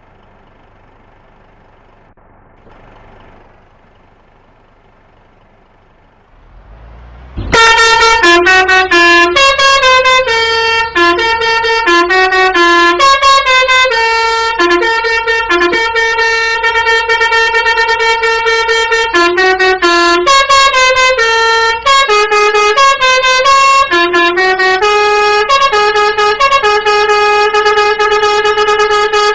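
Bus 'telolet' musical air horn of the Basuri type playing a tune of stepped notes, some held for a few seconds. It comes in suddenly and loudly about seven seconds in, after a faint low hum.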